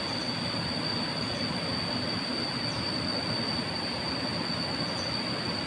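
Steady rush of a flowing river, with a continuous high-pitched whine over it.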